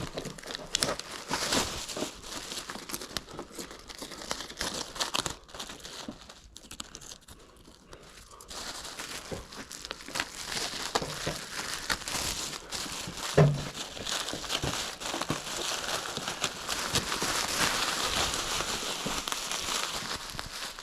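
Masking tape being peeled off and plastic masking sheet crinkling and crumpling as it is pulled away, an irregular run of crackles and small tearing sounds, with one thump about two-thirds of the way through.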